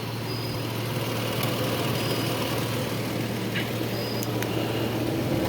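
Hyundai Tiburon's engine idling with a steady low hum. The check engine light blames a bad crankshaft position sensor for its running funny.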